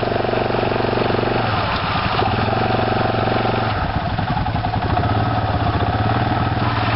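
Small off-road engine idling steadily, its note shifting about a second and a half in and again near four seconds in.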